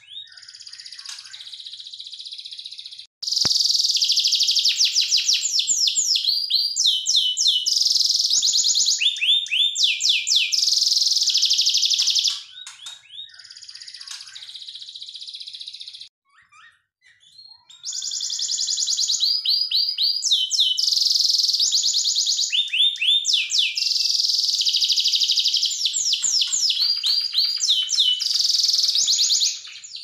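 Yellow domestic canary singing: long rolling song of fast trills and rapid repeated sweeping notes, high-pitched. Two long loud stretches of song, one starting about three seconds in and one about eighteen seconds in, with softer chirping between.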